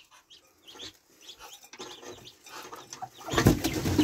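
Muscovy ducklings peeping, many short high calls. A little after three seconds in, an adult Muscovy duck's wings flap loudly as it flies down among them.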